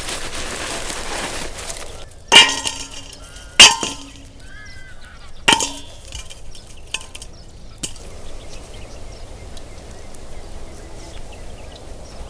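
Soft rustling for about two seconds, then three sharp clinks of metal cooking utensils, each ringing briefly, with a faint bird chirping in between.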